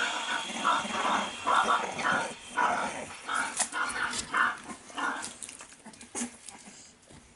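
Four-week-old Staffordshire Bull Terrier puppies squabbling in play: a quick run of short puppy cries, two or three a second, that dies down about five seconds in.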